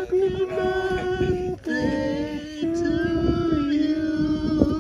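Several voices singing together in long held notes, the pitch stepping slightly lower every second or so.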